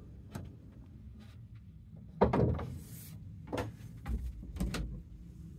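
Wooden cabinet doors on a sailboat's cabin joinery being opened and closed, with several separate knocks and clunks.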